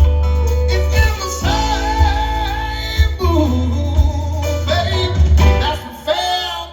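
Live band playing a song, with a strong steady bass under a long held melody note that wavers.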